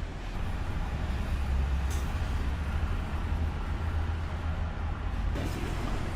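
A steady low rumble under a haze of background noise.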